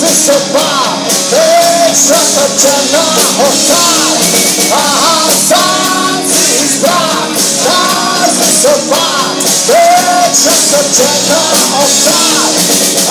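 Live rock band playing loud: a male lead singer's voice over electric guitars, bass guitar and drums.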